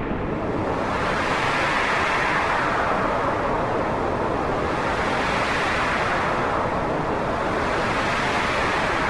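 Wind blowing: a steady rushing noise whose hiss slowly swells and fades in gusts every few seconds.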